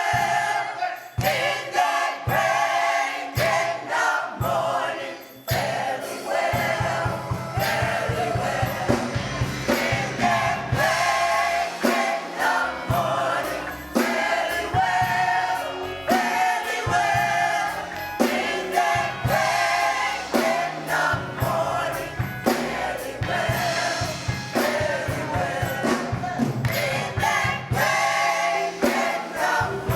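Gospel choir singing with instrumental accompaniment, which fills in underneath about five seconds in and carries a steady beat.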